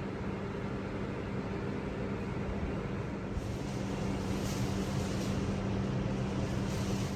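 A steady mechanical hum with an even hiss over it, holding at one level throughout.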